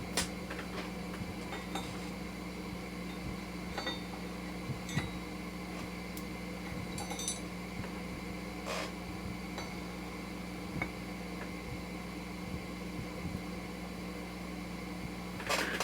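Scattered light metal clinks, a few seconds apart, as steel washers and a sprocket are handled and slid onto a motorcycle engine shaft, over a steady low hum.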